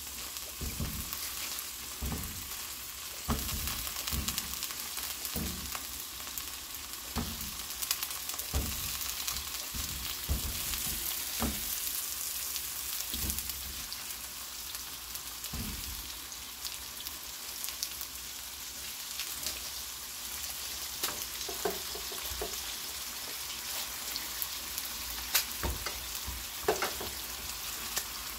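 Pieces of sundae (Korean blood sausage) sizzling gently in a little oil in a nonstick frying pan, a steady hiss. Over it, irregular soft knocks and clicks as more pieces are snipped off with kitchen scissors and dropped into the pan, with sharper snips near the end.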